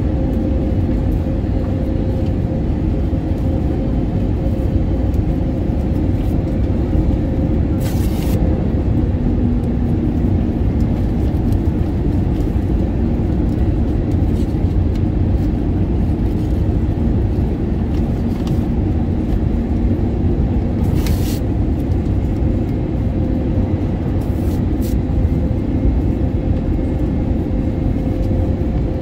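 Steady cabin rumble of an Airbus A320neo with CFM LEAP-1A engines, heard from a front window seat: engine and airflow noise at an even level with a faint steady hum. Two brief clicks stand out, about a third of the way through and again later.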